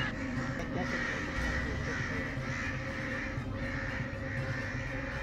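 A flock of crows cawing steadily, the calls repeating one after another.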